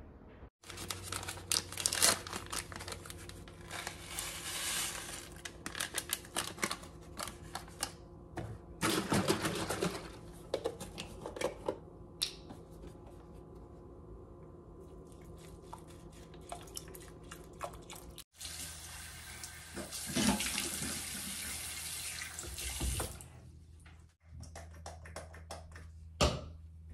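Kitchen handling sounds: clicks and rustles of a food packet and a bowl, and oat milk poured over rolled oats, with stretches of running water.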